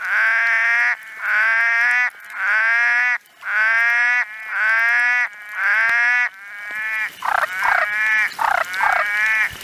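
Tree frog calling: a run of drawn-out calls about a second apart, each rising slightly in pitch. About seven seconds in they give way to a quicker series of shorter calls.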